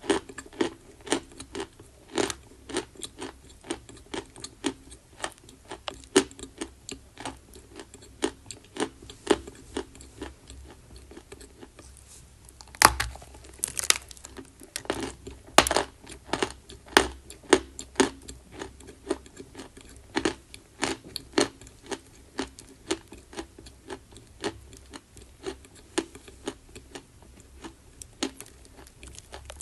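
Close-miked crunching of chalk being chewed: a steady run of sharp, dry crunches, about two to three a second, with a few louder bites near the middle.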